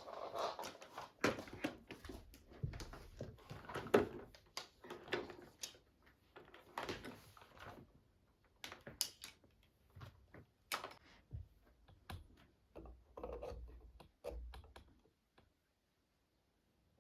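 Irregular small clicks, taps and knocks, like objects being handled and set down, that stop about fifteen seconds in.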